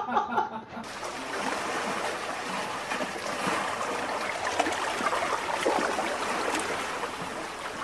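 Steady rushing noise, setting in about a second in and holding level.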